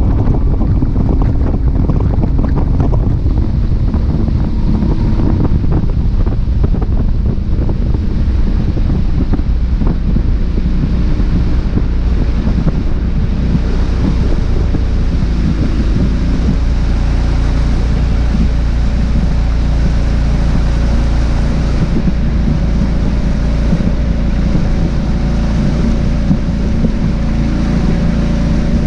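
A boat's motor running steadily underway, with wind buffeting the microphone and water rushing past the hull.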